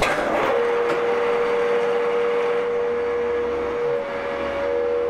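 Vertical milling machine running, with a steady whine setting in about half a second in as the table traverses the clamped gear blank into position under the drill, to drill the first hole of a bolt circle.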